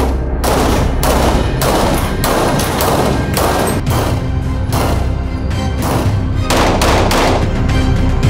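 A semi-automatic pistol fired rapidly, about a dozen shots roughly half a second apart, each ringing off the walls of an indoor range; the shooting stops near the end. Background music with a steady bass plays underneath throughout.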